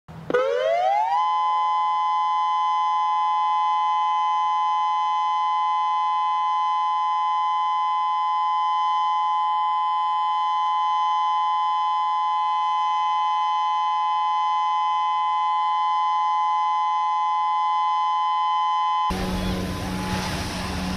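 Outdoor civil-defense warning siren winding up in pitch over about a second, then holding a steady two-note tone without wailing. About two seconds before the end it gives way to wind noise and outdoor rumble, with the siren faint underneath.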